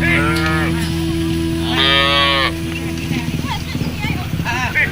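Cattle mooing: a short call at the start, a louder, longer one about two seconds in, and fainter calls near the end, over a steady low hum that stops about three seconds in.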